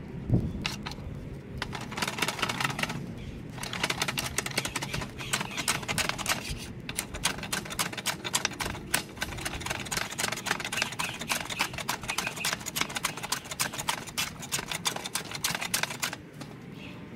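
A wooden hand plane knocks down on the work just after the start. It then cuts shavings from a clamped piece of wood in repeated strokes, a dense, rapid scraping that pauses briefly twice and stops about a second before the end.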